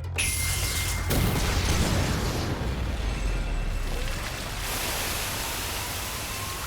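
Cinematic explosion sound effect: a sudden loud blast followed by a deep rumble and a long noisy wash.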